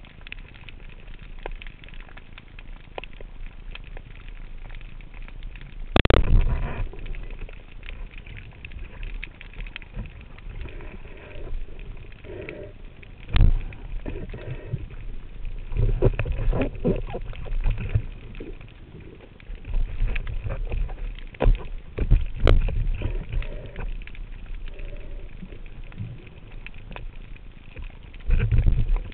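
Underwater sound through a diving camera: a steady muffled water hiss and low rumbling, broken by three sharp knocks, the loudest about six seconds in. One of the first two knocks is the speargun firing at a sea bass.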